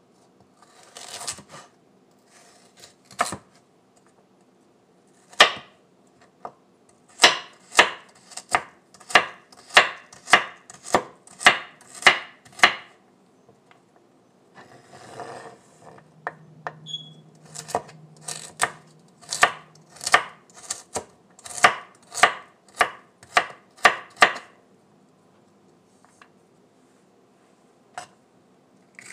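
Chef's knife chopping carrots on a wooden cutting board: sharp knocks of the blade hitting the board, in two long runs of steady strokes about two a second, with a few single cuts between them.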